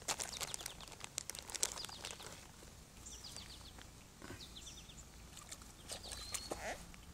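Faint bird chirps: a few short runs of quick high notes, with one lower call near the end. Light clicks and rustles are scattered throughout.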